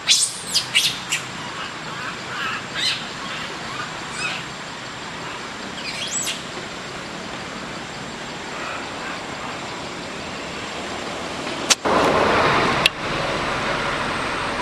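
Birds chirping in the tree canopy: quick, sharp, high chirps that sweep downward, several in the first second, then single calls every second or two. Near the end a click and about a second of louder rushing noise lead into a steady background noise.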